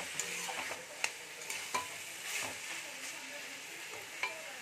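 Metal spatula stirring and scraping banana-flower curry in a kadai over a high flame, with a steady sizzle and a few sharp clinks of the spatula against the pan as the last of the moisture fries off.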